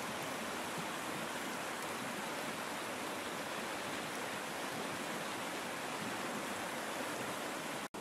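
Steady, even rushing of flowing water, which cuts out for an instant near the end.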